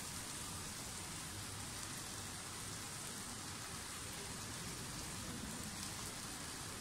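Steady soft sizzling from a pan on the heat, the chicken masala frying beneath a layer of boiled rice.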